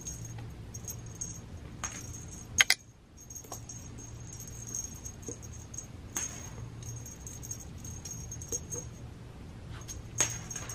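Light jingling and rattling as a cat wand toy's lure is flicked about, with scattered light taps and one sharp knock about two and a half seconds in. A steady low hum runs underneath.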